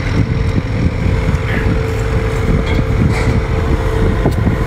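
Engine running steadily: a low rumble with a steady hum underneath.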